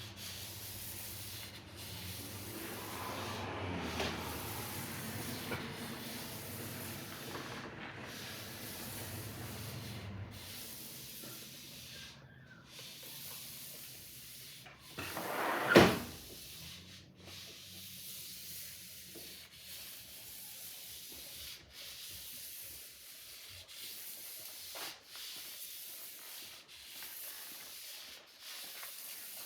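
Sword blade being sharpened, scraping across a sharpening stone in repeated strokes about every one to two seconds. A single sharp knock about halfway through is the loudest sound.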